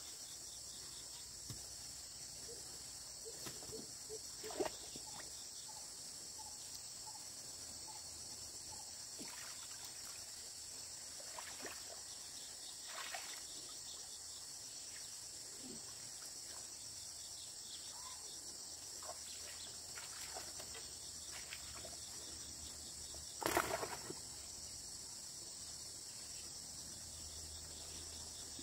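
Steady, high-pitched insect chorus, with a few scattered water splashes and sloshes from someone wading through a shallow, muddy flooded field; one splash, about three-quarters of the way through, is louder than the rest.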